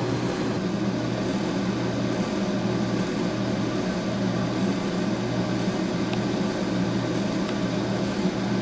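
Steady hum of a workshop machine's electric motor running at constant speed, with a steady whirring noise over it.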